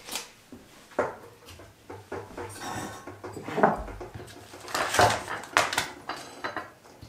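Kitchen items being handled on a wooden worktop: a few scattered knocks and light clatters, with a low thud a little under four seconds in and the loudest clacks about five seconds in, as a plastic milk bottle and a glass are moved and a sachet of pudding powder is picked up.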